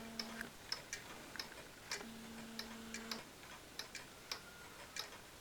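Mechanical wall clocks ticking, about three sharp ticks a second. A low steady hum comes and goes twice.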